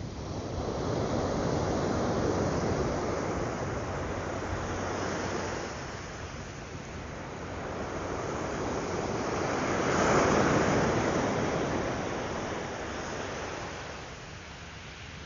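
Ocean waves breaking and washing up a sandy surf beach, swelling in two surges, the louder one about ten seconds in.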